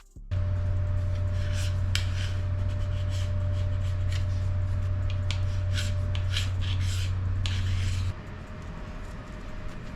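A steady low hum that cuts off suddenly about eight seconds in, under scraping and light metal clinks of hand tools working on a stripped-down engine.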